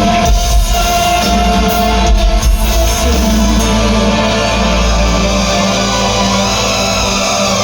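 Live heavy metal band playing loudly, with distorted guitars and a heavy low end.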